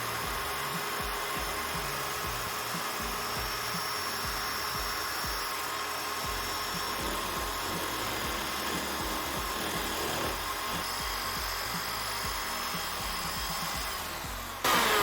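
A homemade wood lathe running steadily while a tool cuts hard wood to re-centre the blank. Near the end a louder sound starts.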